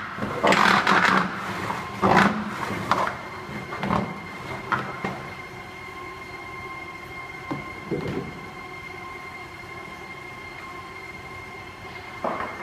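GroTech LD60 belt-type color sorting machine running with a steady hum and two steady high tones. In the first few seconds there are loud clattering bursts as a plastic bin is knocked into place under its discharge chute, and one more knock about eight seconds in.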